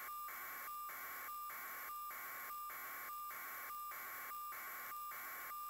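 Steady electronic static hiss, broken by brief dropouts about every 0.6 s with a short tone at each break.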